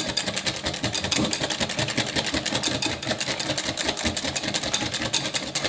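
Electric hand mixer running steadily with a rapid, even clatter, beating eggs into a chocolate, milk and oil batter until it thickens and turns bubbly.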